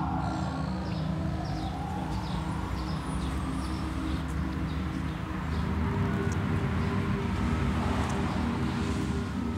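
A siren wailing, its pitch sliding slowly down and back up in long sweeps, over a steady low rumble of traffic.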